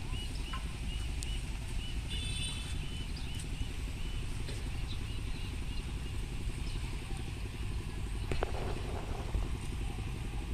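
Steady low outdoor rumble, with a quick run of repeated high chirps in the first few seconds and a brief squeak and a short rustle later on.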